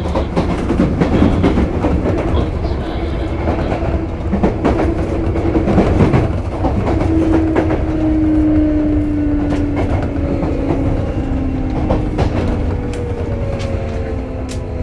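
Sotetsu 8000 series electric train running, heard from inside the car: a steady wheel and track rumble with sharp clicks of wheels over rail joints. From about halfway through, the whine of the inverter and traction motors slowly falls in pitch as the train slows.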